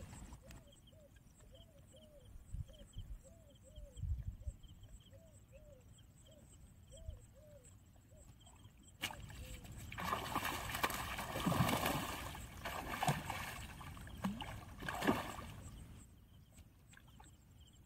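A hooked fish thrashing and splashing at the water's surface, starting suddenly about nine seconds in and lasting several seconds before dying away. Before it, only repeated short calls over a quiet riverside.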